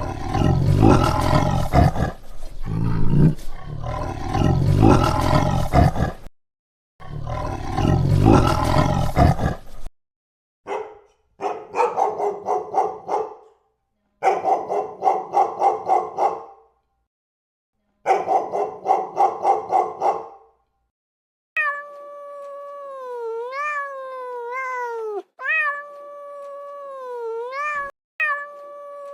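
A sequence of animal calls: a big cat roaring in three long bouts, then three bouts of a rapid pulsing call, then a cat meowing again and again in the last third.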